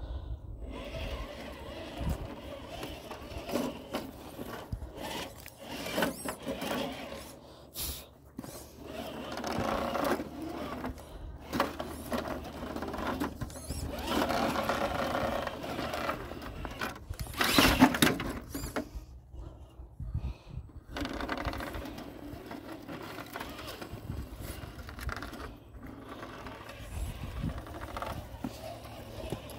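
Radio-controlled Axial SCX10 II scale crawler's electric motor and geared drivetrain whining in repeated throttle bursts as it crawls over loose shale, with rocks clicking and scraping under the tyres; the strongest burst comes about two-thirds of the way through.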